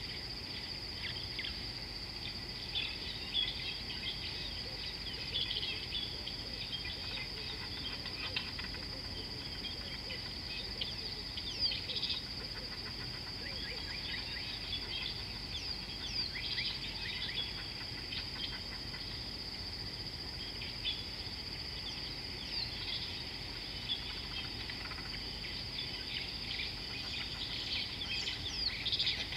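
Outdoor bush chorus: a steady, high-pitched insect drone, with a fainter lower steady tone beneath it, and many short bird chirps and calls coming and going over it, thickest near the end.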